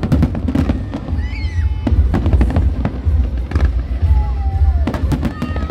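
Fireworks exploding in quick clusters of bangs and crackles, a burst of them roughly every second and a half, over a continuous low rumble.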